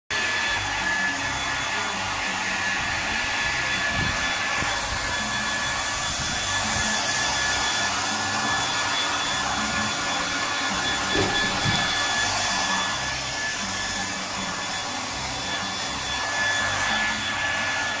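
Handheld hair dryer blowing steadily, a constant rush of air with a steady high whine from its motor, drying a freshly bathed dog's fur.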